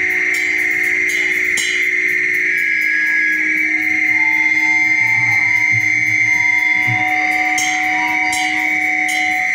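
Live screamo band playing: electric guitars and bass holding long ringing notes over drums and cymbals.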